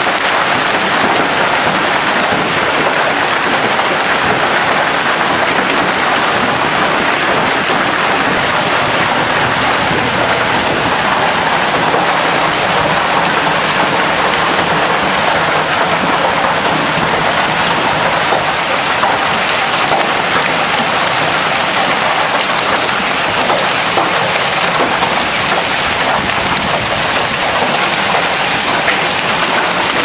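Torrential downpour in a violent storm: a dense, steady hiss of rain pelting down without letup.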